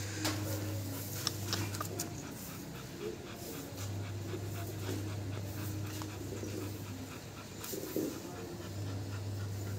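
A Labrador dog panting rapidly and rhythmically with its mouth open, over a steady low hum.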